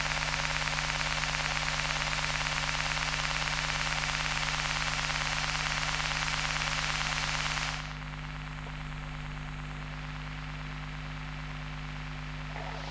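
Electromagnetic pickup of an old Sony CD player reading data, heard as electrical interference: a dense, steady static crackle over a constant low hum. About eight seconds in, the crackle drops away, leaving a quieter hum with thin high whining tones.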